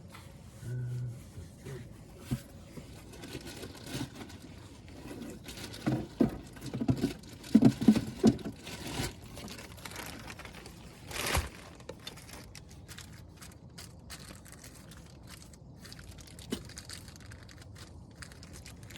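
Crinkling and tearing of packaging mixed with irregular knocks and clicks as parts are handled, with a burst of louder knocks about halfway through and one sharp click soon after.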